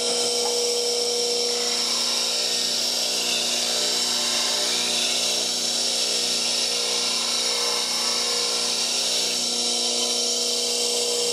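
Bench grinder running with a CBN wheel while a turning gouge's nose is ground against it: a steady motor hum under the constant hiss of steel being ground away to finish the tool's shape and edge.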